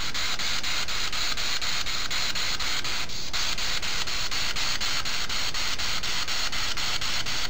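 Radio static from a spirit box sweeping through stations: a steady hiss chopped at an even rate of about five times a second.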